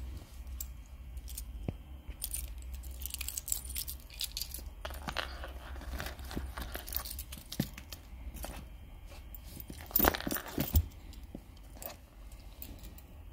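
A key scraping and cutting at the sealed cardboard box of a new phone, with keys jangling and the box and plastic crackling. There are irregular clicks and scrapes throughout, with a louder clatter about ten seconds in.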